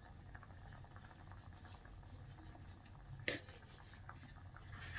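Faint bubbling and small pops of a tomato-onion curry gravy simmering in a kadai, over a steady low hum, with one sharper click about three seconds in.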